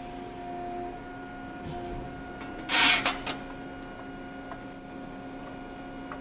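JMT 242-ton hydraulic press brake running with a steady hum from its hydraulics, the pitch shifting slightly a couple of times. About three seconds in, a short loud hiss is followed by a couple of sharp clicks.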